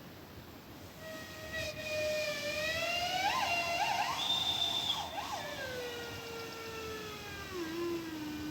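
Fire alarm steam whistle blowing one long tone that starts about a second in. Its pitch wavers up and down a few times in the middle, then slides steadily down until it dies off at the end.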